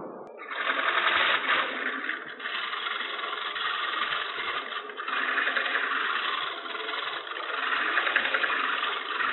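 Turning tool shear-scraping the thin wall of a wooden hat spinning on a lathe: a steady, scratchy cutting noise that starts about half a second in. Its sound is what the turner listens to as a sign that the wood is getting thin.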